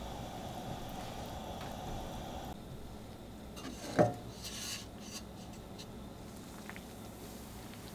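Hibiscus flowers simmering in water in a metal saucepan, a steady low bubbling. About four seconds in, a wooden spoon strikes the pot with one sharp clank and a short ring, followed by a few stirring and scraping strokes.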